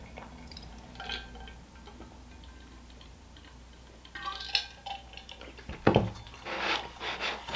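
Drinking from an insulated metal water bottle: quiet swallowing and handling sounds with light clicks and taps. A dull knock comes about six seconds in, as the bottle is put down.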